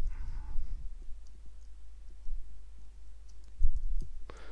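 Faint clicks of typing on a computer keyboard and clicking a mouse, over a steady low hum, with a dull thump about three and a half seconds in.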